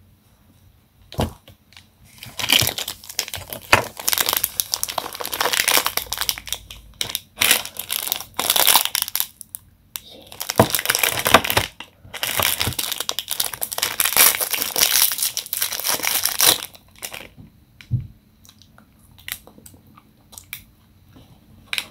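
Plastic wrappers of snack bars crinkling as they are handled and torn open, in two long stretches with a short pause about ten seconds in. After that only a few soft clicks and rustles.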